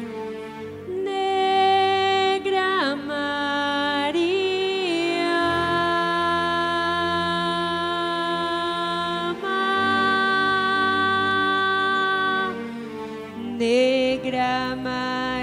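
Slow, unaccompanied-by-drums sung introduction: a voice holds long notes, sliding between pitches a few times, over sustained chords.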